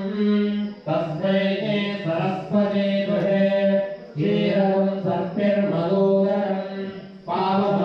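Devotional chanting of a mantra, sung in long held phrases with short breaks about a second in, about four seconds in and near the end.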